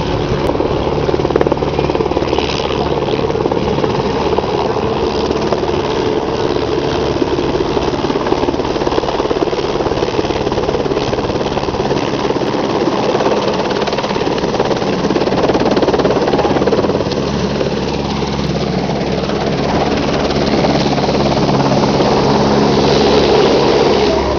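Helicopter running, a steady engine drone with a fast rotor chop, swelling a little twice in the second half.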